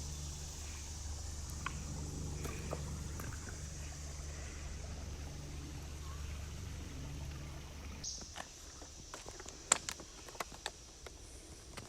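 A steady low hum with a steady high hiss over it; about eight seconds in the hum fades and scattered clicks and knocks of footsteps on creek stones follow.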